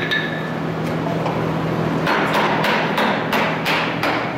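Hammer blows, about three a second from about two seconds in, over a steady low hum that stops as the blows begin.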